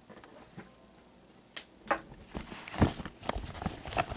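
Handling noise from a camera being picked up and carried against clothing and an arm: irregular knocks and rubbing, starting about a second and a half in and getting louder.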